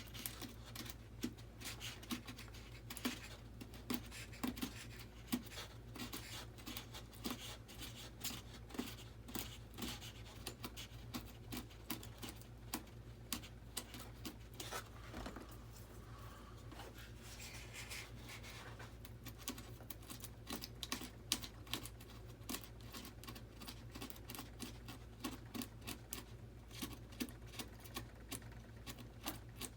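An RC jet's foam airframe being shaped by hand: quick, irregular scratching and scraping strokes, easing off briefly around the middle, over a steady low hum.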